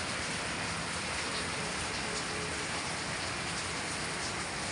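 Steady rain falling on trees and foliage, an even hiss that keeps the same level throughout.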